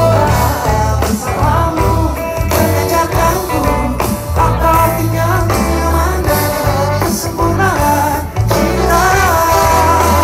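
Live band playing a pop song with a male lead vocal over a heavy, loud bass, heard from within a concert crowd.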